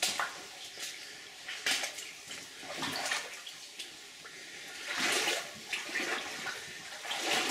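Legs wading through knee-deep water in a flooded mine tunnel: the water sloshes and splashes in surges with each stride, every second or two.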